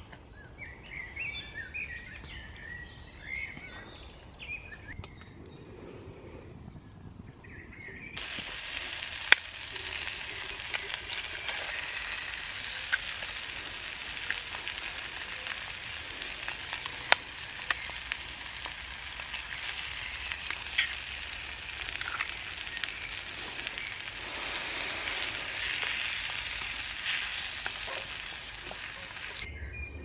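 Faint bird calls over quiet woodland. About eight seconds in, a pan of bacon, egg and tomatoes starts sizzling over a small wood-burning camp stove: a loud, even frying hiss with occasional sharp pops.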